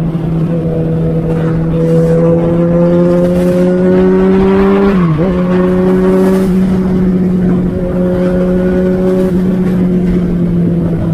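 Yamaha XJ6 motorcycle's inline-four engine rumbling at a steady speed, its pitch creeping up for a few seconds, then dipping and recovering quickly about halfway through before holding steady again.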